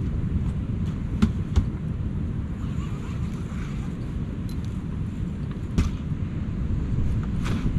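Wind buffeting the microphone in a steady low rumble, with a few sharp clicks and knocks as a hard-shell rooftop tent on a 4WD is pushed closed.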